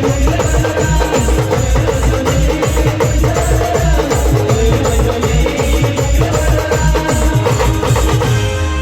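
Band playing timli dance music: a steady, heavy drum beat with a repeating melody line over it.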